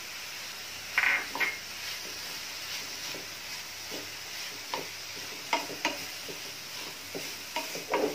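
Black spatula stirring and scraping a coconut-and-jaggery modak filling around a ceramic-coated nonstick pan, in short irregular strokes, with a steady low sizzle of the mixture cooking underneath.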